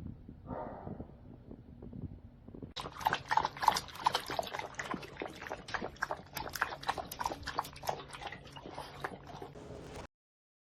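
A dog lapping water from a stainless steel dog water fountain: a fast, irregular run of wet laps and splashes, about three or four a second, that cuts off suddenly near the end.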